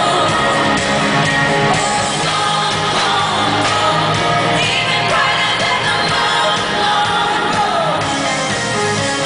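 Live pop concert music: a band and a woman singing, with audience members shouting and screaming.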